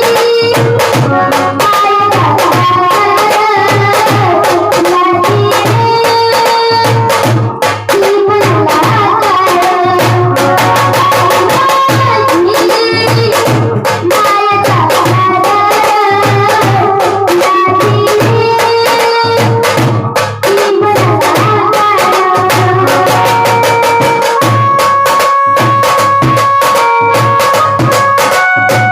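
Music with a steady, repeating drum beat and a melody running above it.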